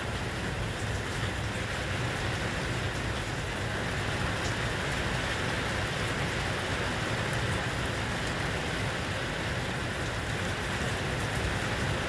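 Heavy rain pouring steadily onto pavement and grass, a dense, even hiss.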